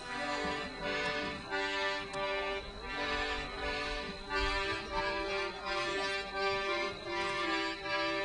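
Music of held chords that swell in a steady pulse about once a second.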